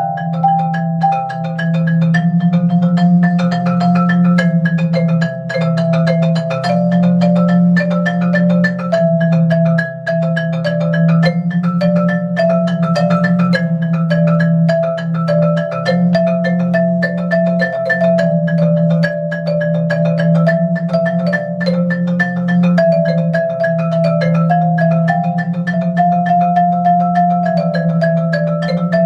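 Marimba played with mallets in a continuous improvised passage: quick strokes carry a wandering melody in the middle range over held, rolled low notes.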